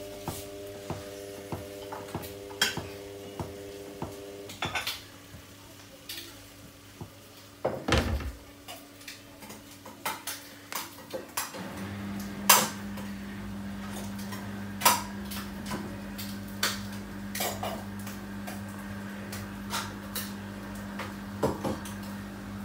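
A Samsung front-loading washing machine runs a cycle with laundry in the drum. A motor whine stops about four seconds in, followed by a heavy thud a few seconds later and a steady low hum from about twelve seconds in. Sharp clinks and clunks of the load against the drum are heard throughout.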